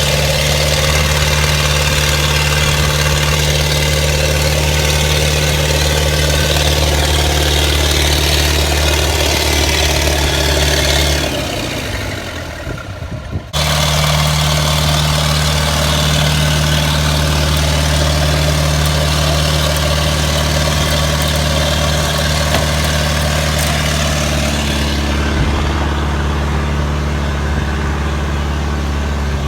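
Diesel engine of a JCB 5C excavator, a four-cylinder Perkins 4.248, running steadily at a low, even speed. Just past the middle the engine sound falls away and breaks up for about two seconds, then returns abruptly at the same steady pitch.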